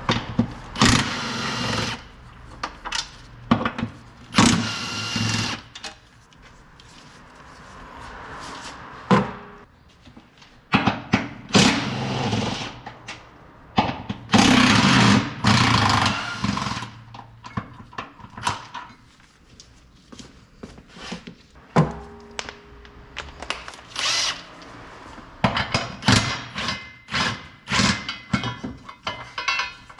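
A power tool runs in several loud bursts of a second or two, during work on the front suspension member bolts and bushes. Short metallic knocks and clicks of hand-tool work come between and after the bursts.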